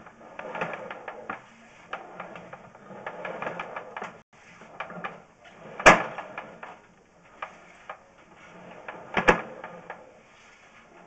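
Sewer inspection camera's push cable being pulled back and fed onto its reel: irregular clicking and rattling, with two sharp louder knocks about six and nine seconds in.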